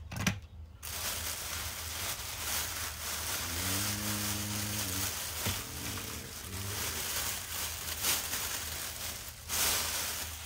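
Continuous rustling and handling noise close to the microphone, with a short low hum about four seconds in.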